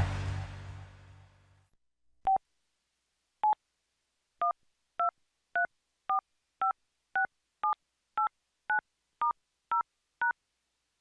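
PH-S6500 mobile phone's keypad tones, recorded straight from the phone: the tail of a melody fades out, two single beeps follow, then twelve short dual-tone DTMF beeps at about two a second, stepping through the keys 1 to 9, *, 0 and #.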